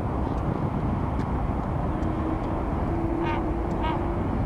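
Two short herring gull calls, one after the other, about three seconds in, over a steady low rumble; a steady hum joins about two seconds in.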